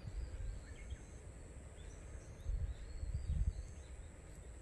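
Low rumbling wind noise on the microphone, swelling about halfway through, with faint short bird chirps and a thin steady high whine over it.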